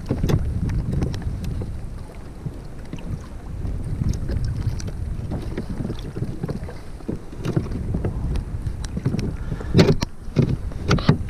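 Wind rumbling on the microphone, with scattered small clicks and knocks from pliers and a snapped rudder cable being worked by hand against a plastic kayak hull. A few sharper knocks come near the end.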